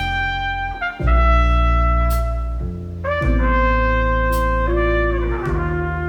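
Instrumental jazz passage: a trumpet plays held melody notes over double bass, piano and drums, with a few cymbal crashes and notes sliding down near the end.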